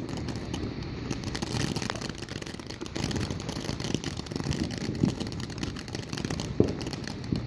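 A small firework fizzing steadily, with many fine crackles.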